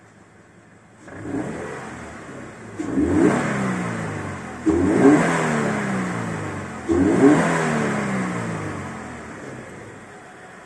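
Toyota 86's FA20 2.0-litre flat-four engine revved at standstill, heard from inside the cabin: a small rise about a second in, then three sharp revs, each falling away slowly toward idle.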